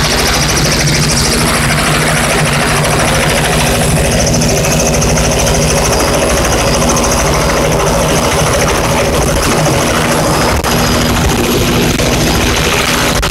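Robinson R66 helicopter's Rolls-Royce RR300 turboshaft running, with its two-bladed main rotor giving a fast, steady beat under a high turbine whine. It is the sound of the helicopter pulling pitch and lifting off into a low hover.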